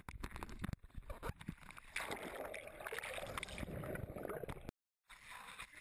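Faint, muffled clicking and wet sloshing from a GoPro held right up against a dog's mouth. There is a flurry of small clicks at first, then a soft wet noise, and the sound cuts out briefly near the end.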